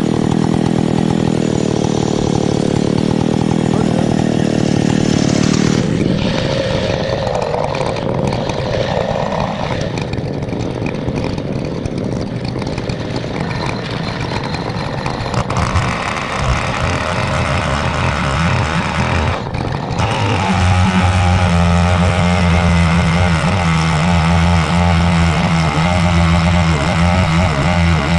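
A Chinese 105cc two-stroke clone of a Stihl 070 chainsaw running hard while ripping a pine log in an Alaskan chainsaw mill. The engine note changes about six seconds in and again about twenty seconds in, then holds steady.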